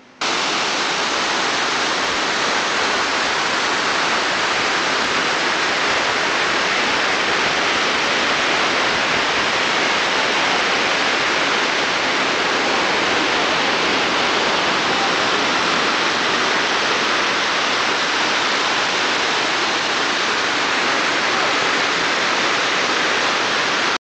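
Steady, loud rush of water with no pitch or rhythm, cutting in suddenly at the start and cutting off abruptly at the end.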